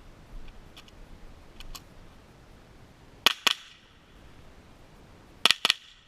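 Rifle shots from a .22 rimfire mini rifle: a quick pair a little past three seconds in, then a fast string of about three more shots some two seconds later, each a sharp crack.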